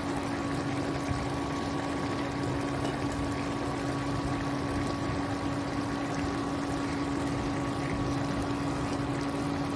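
Keema chana dal simmering in an open pan, a steady bubbling hiss over a constant low hum.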